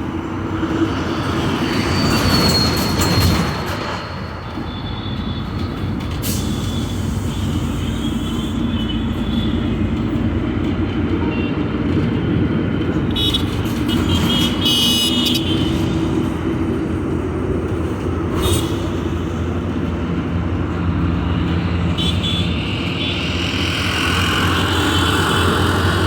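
Busy road traffic: a steady hum of engines and tyres, with vehicle horns honking a few times, near the start and in the middle.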